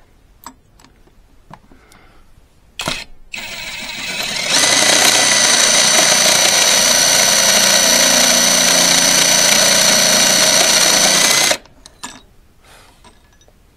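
Cordless power tool's electric motor. It starts with a click about three seconds in, speeds up over a second or so, then runs at a steady, even whine for about seven seconds before cutting off.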